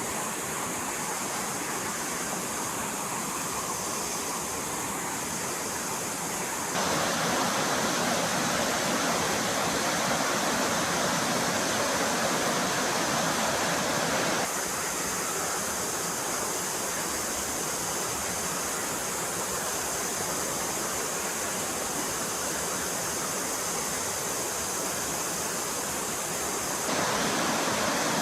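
Stream water rushing steadily. Its loudness jumps up suddenly about seven seconds in, drops back about halfway through, and jumps up again near the end.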